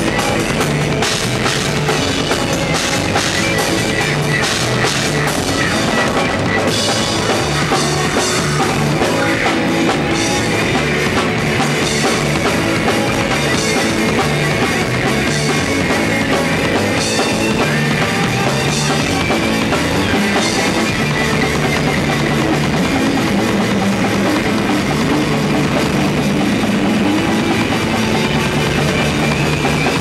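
Rock band playing live: a drum kit with cymbals, electric guitars and a bass guitar playing together at a steady loud level, the bass line stepping between notes.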